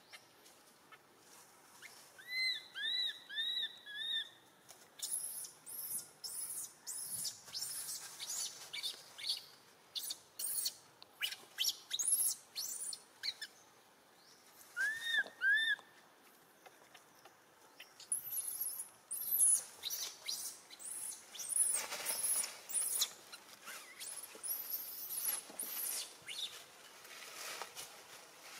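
High-pitched animal chirps: a quick run of four arched, rise-and-fall calls about two seconds in, a pair more in the middle, and many short, very high squeaks coming thick near the end.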